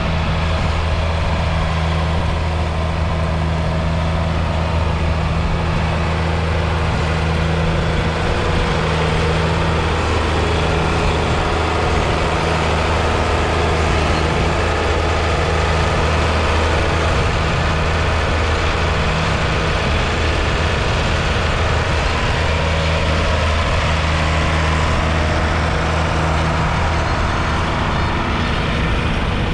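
1982 John Deere 4040's 5.9-litre six-cylinder diesel engine running under load as it pulls a four-furrow reversible plough through stubble, a steady low drone.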